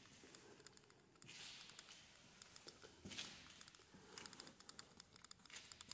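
Faint footsteps over a littered floor: scattered small clicks and crackles with a couple of soft shuffles, the stronger ones a little after one second and about three seconds in.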